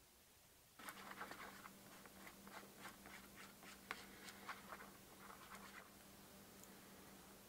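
A small brush stirring epoxy on a lid: faint scratchy scraping and dabbing with scattered light taps, starting about a second in and stopping near six seconds.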